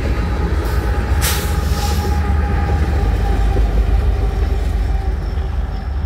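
Rear distributed-power locomotives of a loaded coal train, BNSF SD70ACe and ES44AC diesels, passing close along with loaded coal hoppers, with a steady deep rumble of engines and wheels. A brief hiss comes about a second in.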